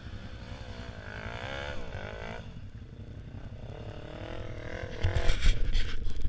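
Off-road engines of quad bikes and a motocross bike running and being revved, their pitch rising and falling in waves. About five seconds in it grows louder, with low rumbles.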